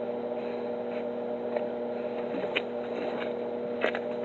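Steady electrical hum from an idling stick-welding machine between welds, with a few faint clicks and knocks.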